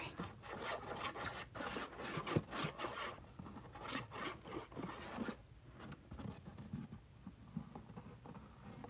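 Stiff cardstock pieces handled and rubbed against each other, with scraping strokes and light knocks, busiest for the first three seconds and then thinning to faint occasional rustles.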